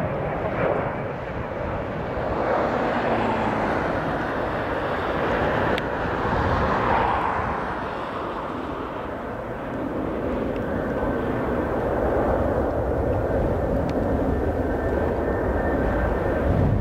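Jet engine noise of a four-engined Boeing 747-400 freighter landing: a continuous rushing noise as it touches down and rolls out along the runway, swelling about six to seven seconds in. From about ten seconds a faint steady whine sits over the rush.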